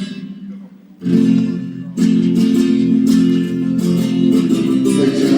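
Guitar strumming chords during a sound check. The ringing dies down briefly, the strumming picks up again about a second in, and from about two seconds in it settles into full, sustained chords.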